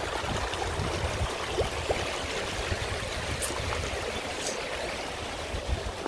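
Shallow mountain stream flowing steadily over rocks and boulders.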